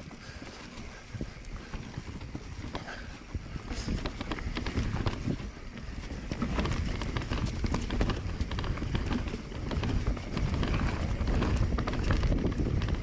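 Mountain bike riding down a rooty trail: irregular knocks, clatter and rattle from the tyres and bike over roots and rocks over a low rumble, louder in the second half.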